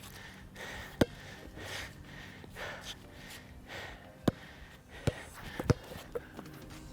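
A basketball bouncing on the court, once about a second in and then several times in quicker succession near the end, with a player's heavy breathing between the bounces.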